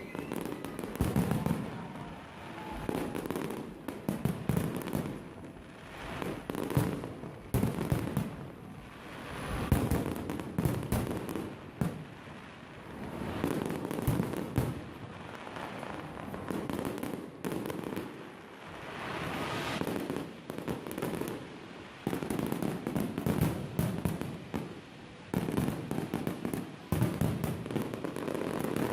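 Fireworks finale: a dense run of bangs and crackling from exploding shells, surging and easing in waves every few seconds.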